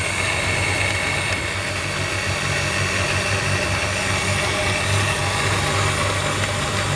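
Vitek countertop blender running steadily on speed 1, its motor giving a loud even whir with a low hum as it purées kiwi and lime with sugar and water.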